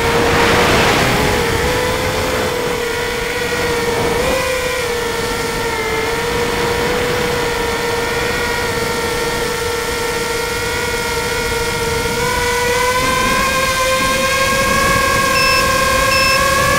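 Tricopter's electric motors and propellers whining steadily in flight, heard from its onboard camera, with wind buffeting the microphone. The whine rises in pitch over the last few seconds, and a short high beep starts repeating near the end.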